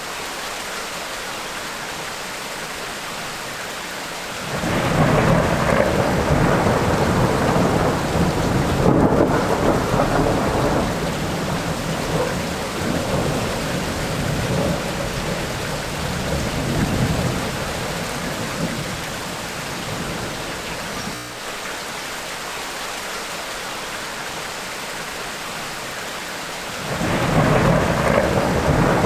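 Steady rain of a tropical rainstorm, with rolling thunder. A long rumble starts about four seconds in and rolls on for around fifteen seconds before dying away to the rain hiss, and a second rumble begins near the end.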